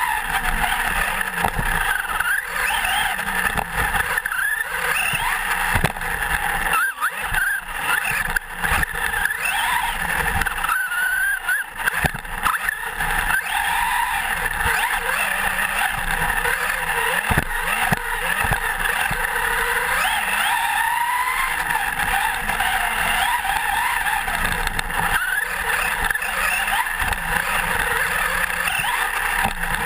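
Onboard sound of a Traxxas Slash 4x4 electric RC truck running on a 6-cell NiMH pack: the motor and gear whine rises and falls over and over with the throttle. Under it is the steady noise of the tyres and chassis on the dirt, with scattered knocks from bumps.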